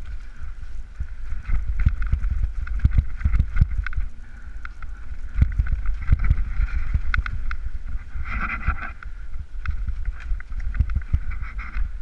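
Mountain bike descending a rough forest trail: a steady rumble of wind and riding on the camera's microphone, with frequent clatter and knocks from the bike over the ground. A high buzz comes and goes, loudest about eight seconds in.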